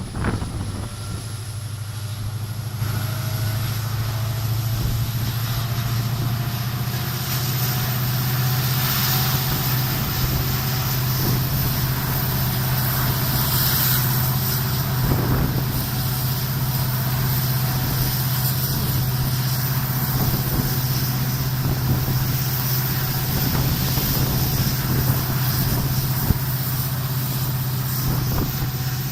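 Bus engine running steadily under way with a deep, even drone, and a whine that rises slowly in pitch over the first ten seconds or so as it picks up speed.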